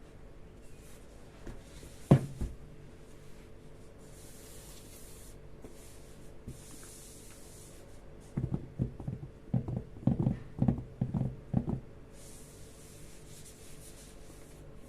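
Hands handling a graphics card's cardboard box and packaging: a sharp knock about two seconds in, soft rubbing and sliding, then a quick run of low knocks and taps between about eight and twelve seconds.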